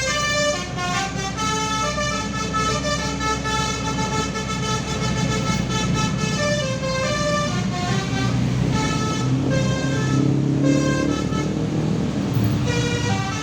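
Bus's multi-tone 'telolet' air horn playing a tune of quick, separate stepped notes, over the steady rumble of the bus's engine.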